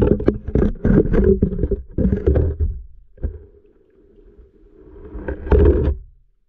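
Underwater microphone sound of water and handling: a dense run of irregular knocks with low rumbling, then a steady low hum. Near the end a loud rumble swells and cuts off abruptly.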